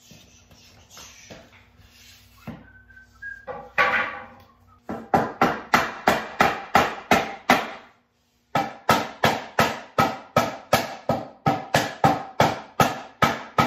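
A hammer striking wood in a long, even run of about three blows a second, driving a wooden cross member into place between two desk legs. Just before the blows start there is a brief clatter of wood being moved, and the blows stop for a moment just past the middle.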